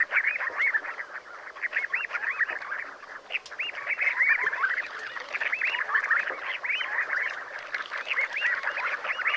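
Sandgrouse calling: many short chirping calls that overlap one another, as from a group of birds.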